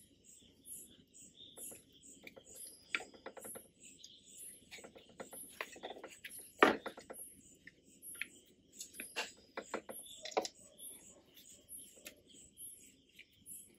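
Metal clicks and clinks as gears and shaft parts are handled and worked loose inside an opened Yamaha RX100 engine case, with one sharper knock about two-thirds of the way through. A steady high chirping, about two a second, runs in the background.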